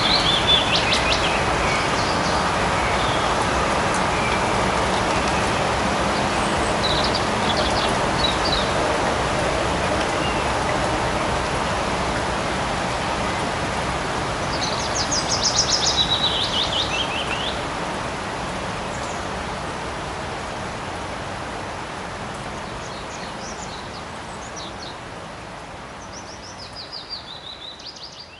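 Light rain falling steadily in a forest, with birds chirping in short rapid trills now and then. The whole recording fades out gradually over the last ten seconds or so.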